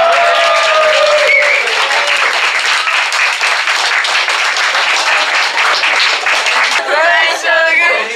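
A small crowd applauding, many hands clapping together for several seconds, with voices calling out over the clapping at the start and again near the end.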